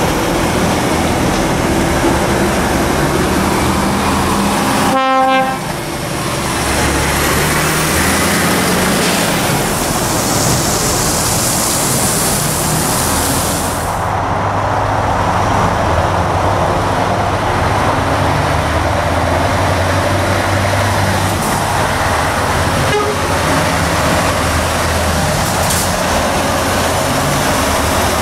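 Heavy diesel truck engines running, with a short horn toot about five seconds in and a hiss from about eight seconds that stops abruptly near the middle. In the second half a Scania tractor unit's diesel engine pulls slowly past under a heavy oversized load.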